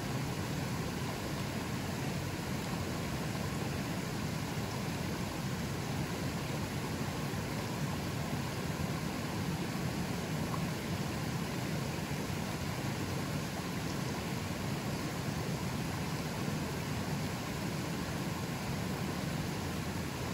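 A river flowing a bit strongly: a steady, unbroken rush of water with a deep undertone.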